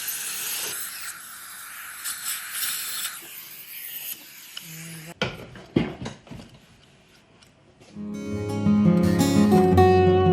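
Steady hissing of dental equipment that cuts off about five seconds in, followed by a few clicks and knocks. Acoustic guitar music starts near the end.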